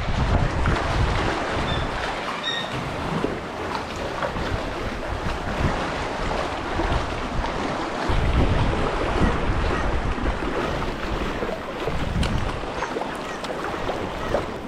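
Sea water sloshing and splashing around a kayak as it is paddled, with paddle strokes dipping into the water and gusts of wind buffeting the microphone, strongest at the start, about eight seconds in, and again near twelve seconds.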